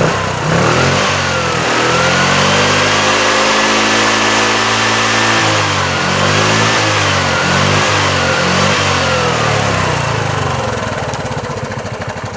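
Bajaj Chetak 4-stroke scooter's single-cylinder engine revved from idle and held high, then blipped up and down several times before settling back to idle near the end. It revs evenly with no knocking or misfire, running on a newly fitted CDI ignition unit in place of the defective one.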